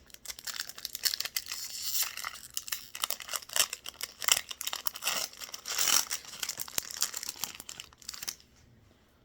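Foil wrapper of a Pokémon booster pack crinkling and tearing as it is opened by hand: a dense run of crackles that stops about eight seconds in.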